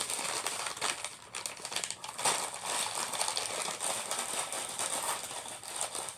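Toy packaging being handled: plastic and cardboard crinkling and rustling in irregular bursts.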